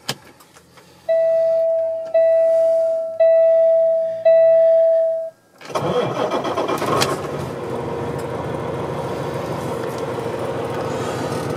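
A truck's dashboard warning tone sounds four times, each a steady beep about a second long. Then the Peterbilt semi truck's diesel engine cranks, catches and settles into a steady idle.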